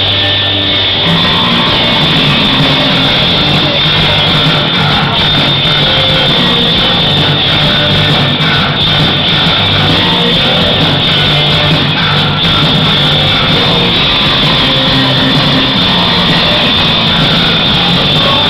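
Live rock band playing loudly: electric guitar, bass guitar and drums.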